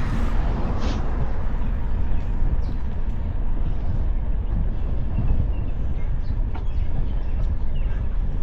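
Wind buffeting the action camera's microphone while cycling: a steady low rumble, with a few faint clicks and high chirps.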